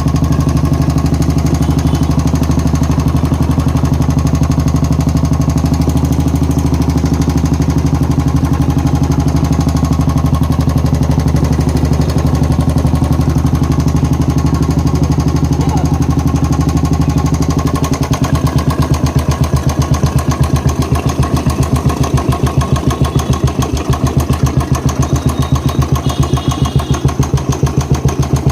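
Royal Enfield Classic 350's single-cylinder engine running steadily, then settling into a slower, distinct thump-thump idle beat about two-thirds of the way through. The engine is the one being checked for a tick-tick noise.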